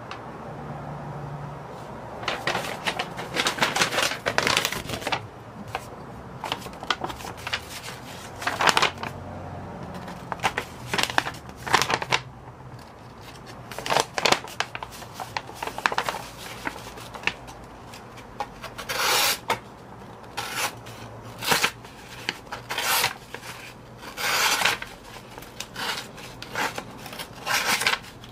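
Sheet of printer paper rustling as it is handled and sliced with a Lansky folding knife, in repeated short strokes with a few longer cuts. The blade snags and tears the paper more than it cuts, the sign of a factory edge that is not very sharp.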